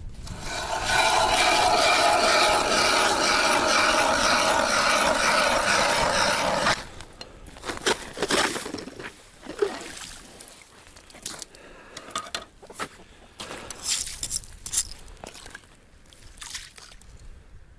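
Hand ice auger drilling through river ice: a loud, steady grinding scrape of the blades cutting ice for about six seconds, which stops abruptly. After that come scattered short scrapes and knocks as ice and slush are cleared from the new hole.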